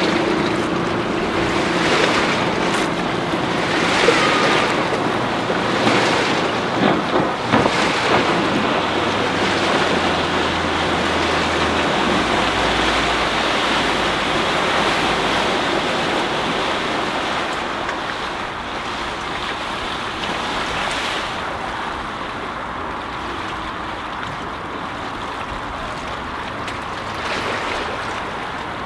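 Wind buffeting the microphone over a steady wash of water, with a motor cruiser's diesel stern-drive engine running at a distance underneath.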